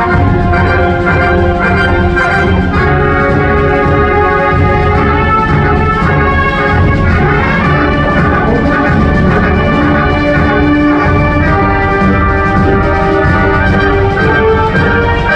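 High school concert band playing, with trumpets and trombone to the fore over clarinets and low winds, moving through held chords.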